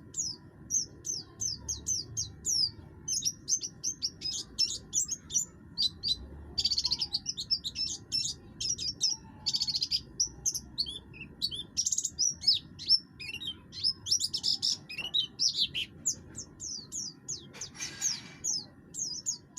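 Oriental white-eye (buxtoni form) singing hard. It gives a fast, continuous string of short, high chirps and trills in a rough-toned song.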